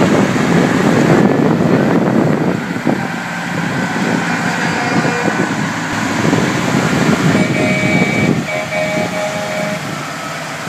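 Heavy diesel trucks running close by: a steady, loud engine rumble.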